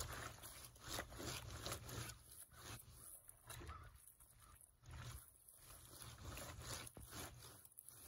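Wet sheets being scrubbed by hand against the corrugated metal ridges of a wooden-framed washboard standing in a galvanized tub of soapy water. The faint rasping strokes come at an uneven pace, with water sloshing in the tub.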